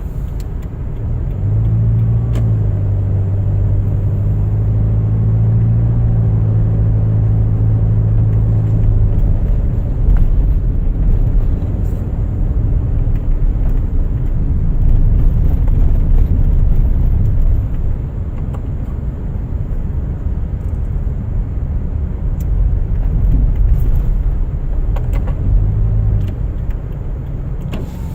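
Car driving: steady low engine and road rumble heard from inside the cabin. A low engine drone comes in about 2 s in and holds until about 9 s, and returns briefly near the end.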